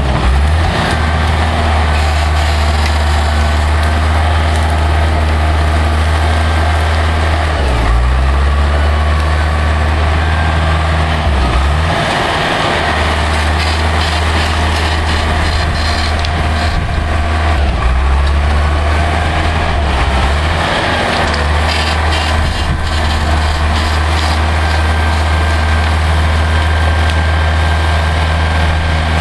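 Bulldozer's diesel engine running hard under heavy load, its pitch sagging briefly and recovering several times as it lugs while pushing over trees, with scattered cracks and clanks over the steady drone.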